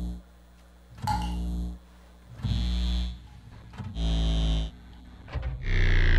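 Horror film score: short, deep notes repeat about every second and a half. Near the end comes a louder sting whose pitch slides downward.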